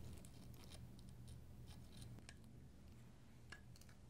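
Faint, scattered scrapes and clicks of a locking lug scraper tool and receiver brush worked inside a rifle's locking lug area, scraping away carbon, over a low steady hum.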